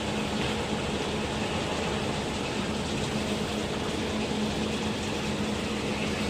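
Steady machinery noise: a constant low hum under an even hiss, unchanging throughout.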